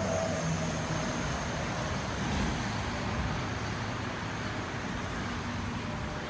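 Steady low rumble of road traffic, easing off slightly.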